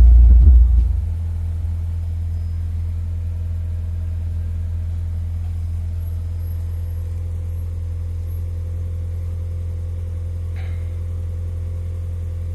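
Mitsubishi 4G93 1.8 GDI engine coming down from higher revs about a second in, then idling steadily. The owner reports a knock from this engine at start-up and between 3,000 and 3,500 rpm.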